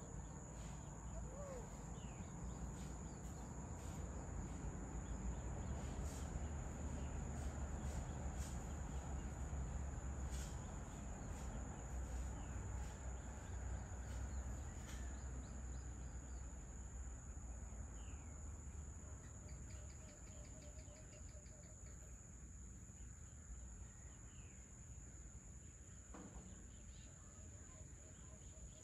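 Evening ambience over a tropical forest: a steady high-pitched insect chorus with scattered short bird calls and chirps. A low rumble underneath swells in the first half and eases off toward the end.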